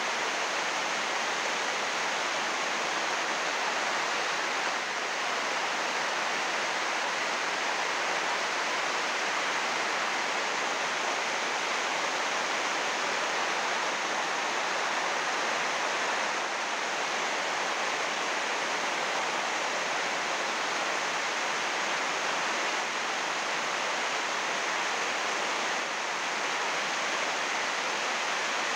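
Heavy rain falling on a greenhouse roof of 6-metre-wide, 80-micron UV plastic film, a steady, even hiss with no breaks.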